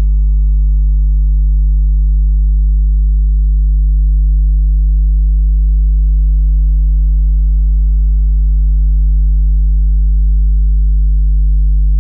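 Electrical buzzing: a loud, deep hum of the mains kind, holding one low pitch with a few faint overtones and no change in level.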